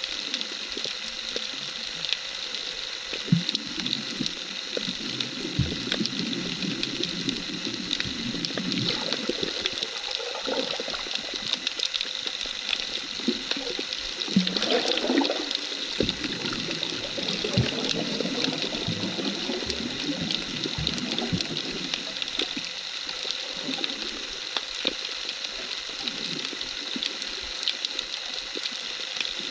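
Underwater sound picked up by a submerged camera: a steady hiss of the sea with many scattered small clicks and crackles. Low, wavering swirls of moving water come and go through it.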